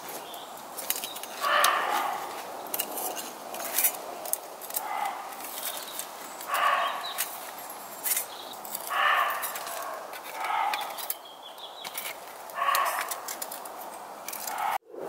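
An animal barking, single barks repeated every couple of seconds, about six in all, over the rustle and clicks of gear being handled.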